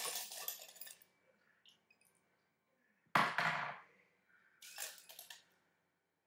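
Ice clattering into a container in three short bursts, the loudest and sharpest about three seconds in.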